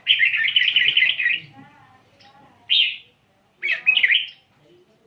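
Red-whiskered bulbul singing in fast rattling bursts of bright notes: a long rapid run, a short single phrase about a second later, then another quick run.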